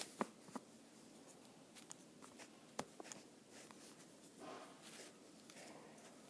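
Near silence broken by a few faint taps and clicks and a soft rustle from handling Play-Doh and its tools.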